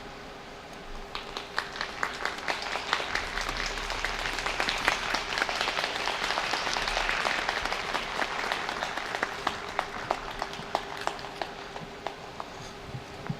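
Audience applauding: scattered claps begin about a second in, swell into full applause around the middle, then thin out to a few claps near the end.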